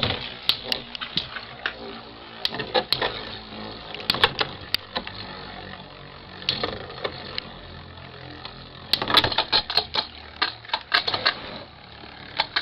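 Two Beyblade spinning tops, a Lightning L-Drago and a customised top, clashing in a plastic stadium: bursts of rapid sharp clacks as they collide, the densest run from about nine to eleven seconds in, with quieter stretches between.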